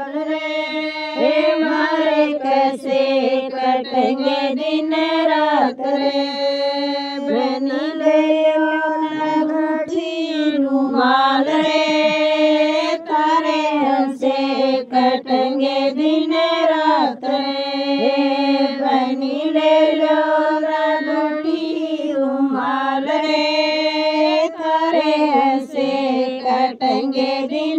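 A woman singing a Haryanvi banna geet, the folk wedding song for the groom, in long drawn-out lines that rise and fall, with no instruments.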